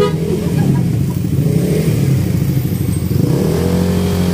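Motorcycle engines running at idle among a group of stopped bikes, a rough uneven rumble; about three seconds in an engine settles into a steadier, even hum.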